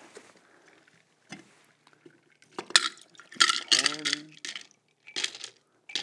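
Shaken cocktail being poured from a shaker through a bar strainer into a glass, the liquid splashing in a few short spurts starting about two and a half seconds in.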